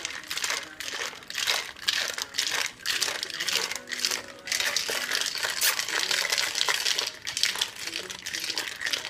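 Ice cubes and water rattling hard inside a glass-and-metal-tin cocktail shaker, shaken rapidly and continuously to mix a fruit drink.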